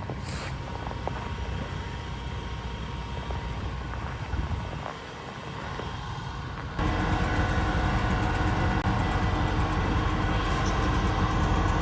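Steady mechanical rumble with a droning hum, which jumps abruptly louder about seven seconds in.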